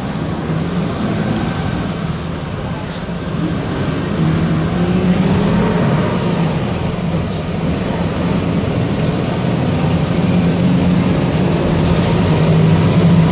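Diesel engine of a Volkswagen 15-190 EOD city bus running steadily, getting louder about four seconds in, with a few short clicks over it.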